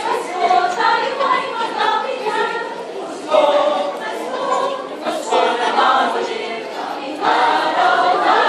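Mixed choir of men's and women's voices singing together in phrases, with louder entries a little over three seconds in and again near the end.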